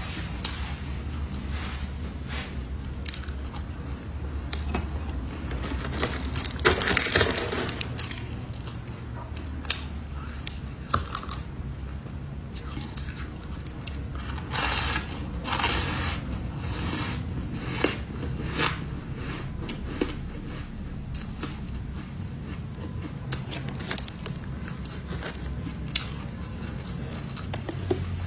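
A person biting and crunching ice: scattered sharp cracks and clicks, with two longer crunching spells about seven and fifteen seconds in.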